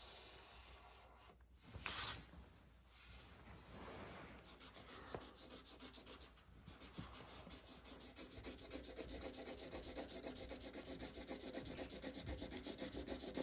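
Sharpie marker rubbing back and forth on paper as an area is coloured in, with quick even strokes that grow louder toward the end. A brief louder rustle comes about two seconds in.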